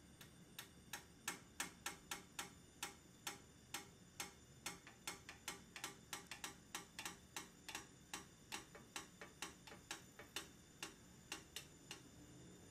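Faint, sharp crackles and pops from a frying pan as bread fries, about three a second, uneven in spacing and loudness.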